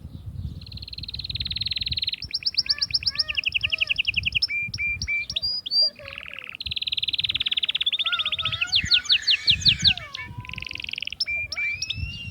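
Domestic canary singing a long, loud song of rapid trills, switching from one repeated trilled phrase to another every second or so, with a brief pause about halfway through.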